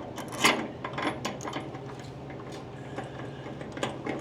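MIG welder arc spitting and sputtering in irregular crackles over a steady hum: welding with the shielding gas turned off.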